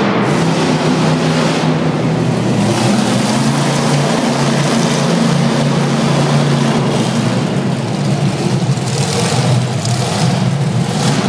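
Bigfoot monster truck's engine running loud and steady as the truck drives slowly across the floor.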